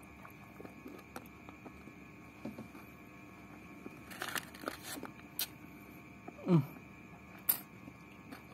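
Eating by hand from a brown-paper rice wrap: the paper rustles and crinkles as rice is picked up, with light clicks and mouth noises between. The loudest sound is a short one falling in pitch about six and a half seconds in.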